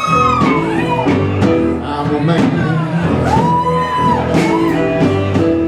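Loud music with a singing voice and guitar over a steady beat.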